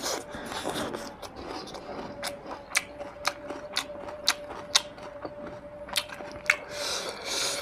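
Eating by hand, chewing and lip-smacking: a string of sharp, wet mouth clicks about two a second. There is a short breathy hiss near the end and a faint steady hum behind it.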